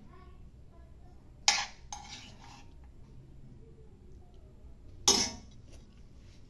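A metal spoon clinking against a stainless-steel cooking pot as chicken adobo is spooned out onto a plate of rice: two sharp clinks, about a second and a half in and again about five seconds in, each with a short ring.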